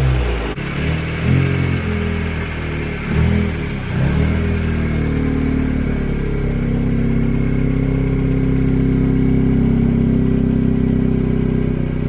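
A 2017 Honda Civic Si's turbocharged 1.5-litre four-cylinder, breathing through a newly fitted PRL Cobra cold air intake, is revved briefly twice in the first few seconds and then settles into a steady idle.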